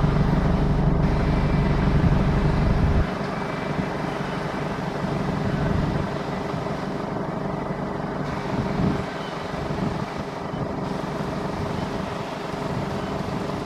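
John Deere 8R 410 tractor and New Holland BigBaler 1290 High Density square baler running while baling straw, a steady machine din with a deep engine rumble. It is louder at first and drops about three seconds in.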